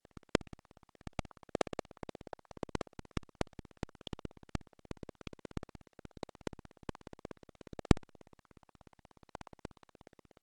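Computer keyboard typing: a quick, irregular run of key clicks, several a second, with a few harder keystrokes.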